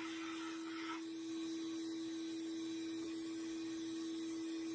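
Sandblasting cabinet running with a steady hum, with the hiss of the blast nozzle that stops about a second in.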